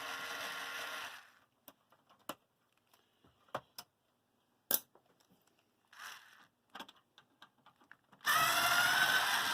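Electric screwdriver motor running with a steady whine, stopping about a second in. Several seconds of scattered small clicks and knocks follow, then the screwdriver starts whining again near the end.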